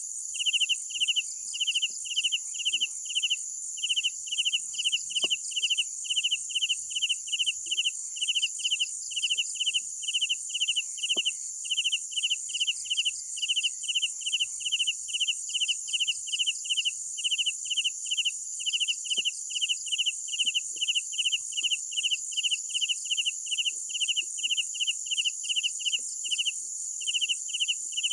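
Crickets chirping: one chirp repeated evenly about twice a second, over a steady high-pitched trill from more insects.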